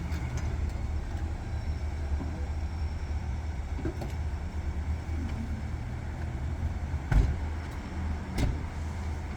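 A motor vehicle's engine idling steadily, with two short sharp knocks near the end.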